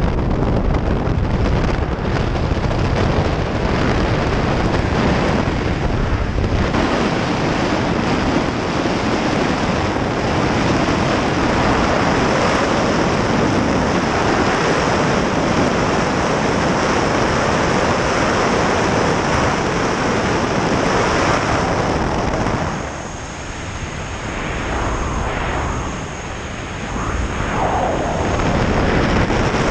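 Freefall wind rushing over a body-mounted camera's microphone, a loud steady rush. For the first six seconds the jump plane's engine and propwash add a heavier low rumble; the rush dips briefly about 23 and 26 seconds in, while a faint high whine sits over it near the end.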